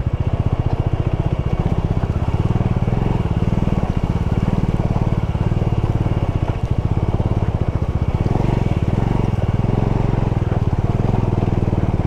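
Bajaj Dominar 400's single-cylinder engine running steadily at low revs as the motorcycle is ridden slowly, its firing pulses closely and evenly spaced.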